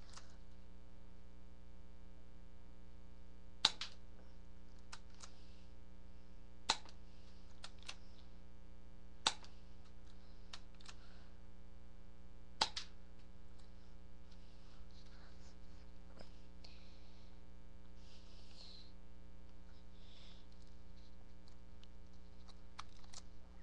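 BB pistol fired four times, each a sharp snap a few seconds apart, with fainter clicks in between as the stiff slide is cocked for the next shot. A steady electrical hum runs underneath.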